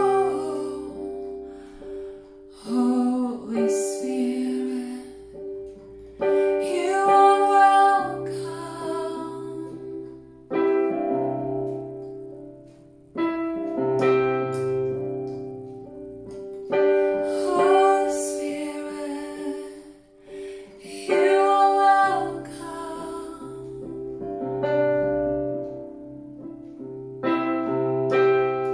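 A woman singing a slow worship song in phrases over her own piano chords, with the chords ringing on between her lines.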